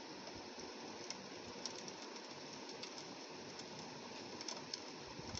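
Steady rain, a soft hiss with many small irregular taps of drops striking window glass.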